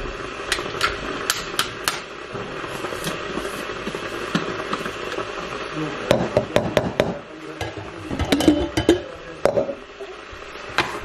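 Plastic container and its red lid being handled: sharp clicks in the first two seconds and a run of knocks and clatter in the middle, over a steady background hiss.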